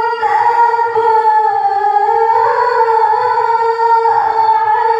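A woman reciting the Qur'an in the melodic tilawah style into a handheld microphone. She holds long, high notes with small ornamental turns.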